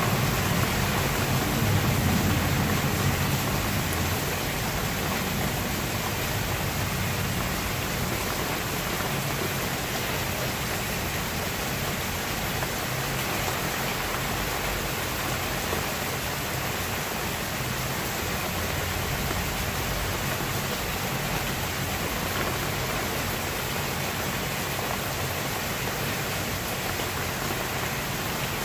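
Steady rain falling, an even hiss, a little louder and deeper for the first few seconds.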